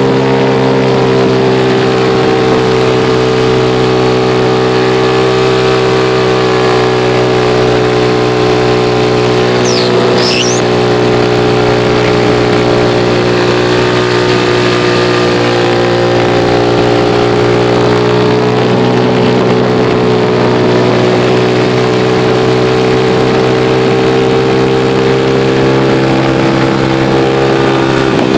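Engine of the vehicle carrying the camera, running at a nearly constant speed while travelling downhill, a steady even hum with little change in pitch.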